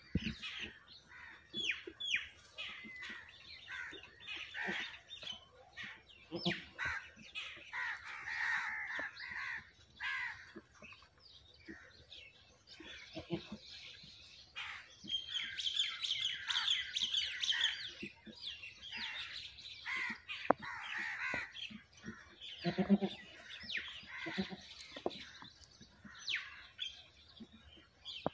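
Many birds chirping and calling throughout in quick, overlapping bursts, with a short lower call about three-quarters of the way through.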